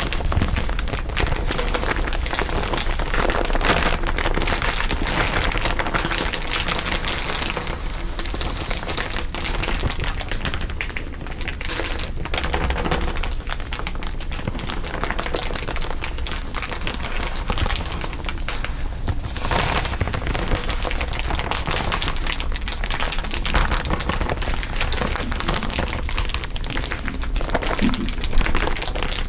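Dense, continuous crinkling from several layered crinkle sounds, a steady crackle of many small ticks.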